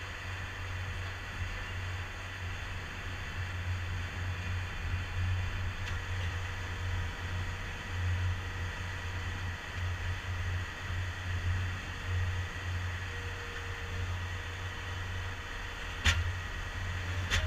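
Compact track loader's diesel engine running steadily as a low drone while it holds a hydraulic drive head on a helical pile. A single sharp click sounds about a second before the end.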